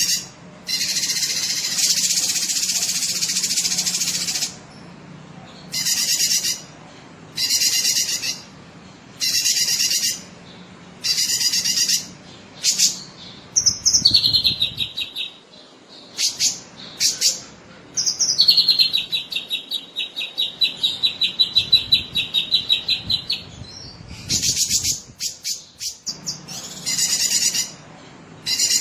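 Cucak kinoi singing: short, bright, repeated phrases about every one and a half to two seconds, broken by two rapid trills that sweep down and then hold one pitch. The first trill comes about halfway through and the second, about five seconds long, follows soon after.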